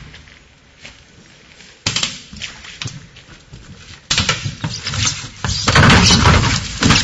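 Irregular rustling and handling noise, as of leaves and branches brushed and the camera knocked while it is carried through dense brush: a short burst about two seconds in, then a louder, denser stretch from about four seconds in.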